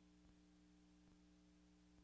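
Near silence: a faint steady hum with a few faint clicks.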